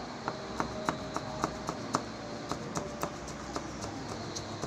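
Kitchen knife chopping tomato on a plastic cutting board: a steady run of sharp taps as the blade strikes the board, about three or four a second.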